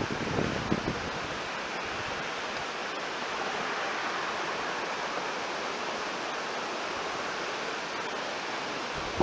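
Steady rush of a river's flowing water, with a few low buffets of wind on the microphone in the first second.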